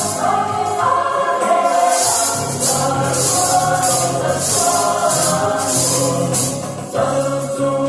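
Gospel choir music with a group of Salvation Army timbrels (jingle tambourines) shaken and struck in time with it, the jingles coming in bursts about once or twice a second. The music drops away briefly near the end.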